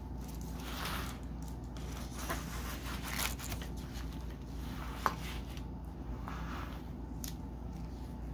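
Stainless steel bolo machete blade sliding into its nylon sheath. The blade scrapes and the fabric rustles as gloved hands handle the sheath, with one sharp click about five seconds in.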